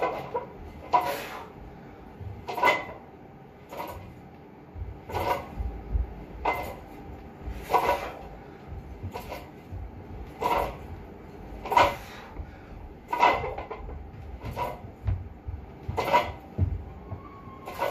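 Plate-loaded multi-grip bar knocking and clanking with each movement of a seated overhead press: short sharp knocks that ring briefly, about one every second and a half, with a few low thuds between.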